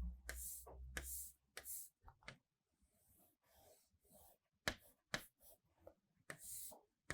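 Faint strokes and light taps of writing, a dozen or so short scratches spread unevenly through, as a diagram is drawn.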